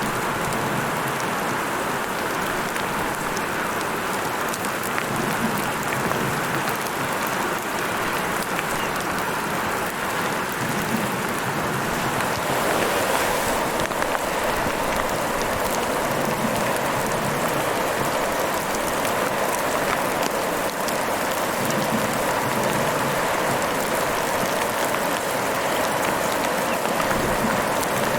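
Heavy rain falling steadily, a dense even hiss with scattered drop ticks, growing a little stronger about halfway through.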